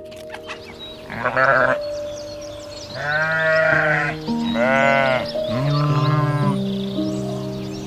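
Sheep bleating: four separate calls, the longer ones lasting about a second.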